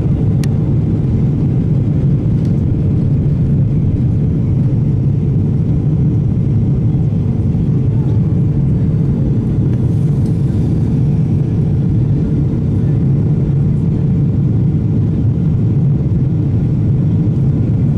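Jet airliner cabin noise during the climb after take-off: the engines and air noise make a steady, even low rumble, with a faint steady hum above it.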